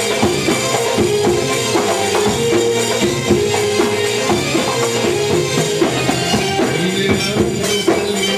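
Live band playing Egyptian belly-dance music: a sustained melody line over a steady beat of hand percussion.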